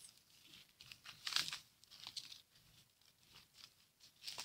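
Faint footsteps crunching on the ground, with scattered irregular rustling; the loudest crunch comes about a second and a half in.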